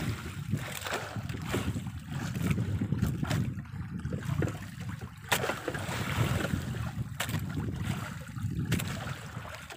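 Wind buffeting the microphone and sea water washing against a small outrigger boat, with a few sharp light knocks scattered through.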